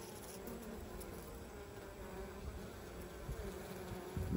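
Honey bees buzzing steadily around a brood frame lifted from an open hive. A low bump comes near the end.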